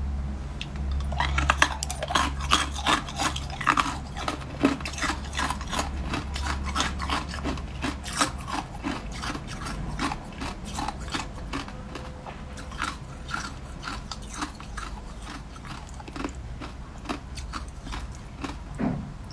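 Frozen ice balls in a glass bowl crackling and clinking in many rapid sharp cracks, densest in the first half and thinning out later, while a cold pink drink is poured over them and freezes into slush.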